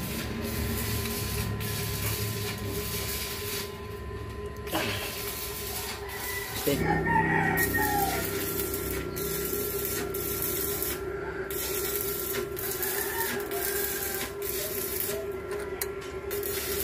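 A rooster crowing once, an arched call about seven seconds in, over a steady hum.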